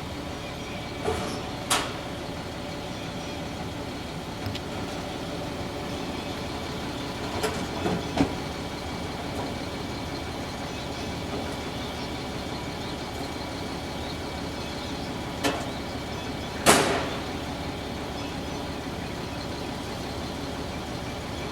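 An engine running steadily, with a few sharp knocks or clunks: two about a second in, two around the middle, and two more, the loudest of all, near the end.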